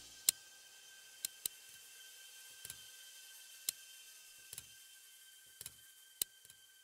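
Lock picks working a door's cylinder lock: sparse, irregular small metallic clicks, some single and sharp, some soft double clicks with a faint low knock. A faint steady high tone runs underneath.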